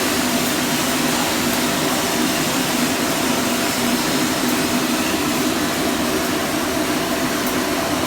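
FC Roaster 20 kg coffee roaster running mid-roast: a steady, even machine hum and rush with no change in level.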